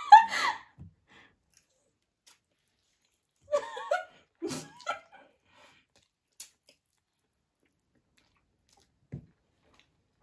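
Mostly quiet, broken about three and a half seconds in by two short bursts of a person's voice, brief exclamations or giggles, then a faint click and a soft low thump near the end.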